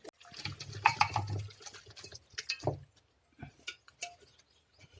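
Eating sounds: a plate of rice and mutton curry being eaten, with scattered light clinks of the plate and soft wet mouth and mixing sounds.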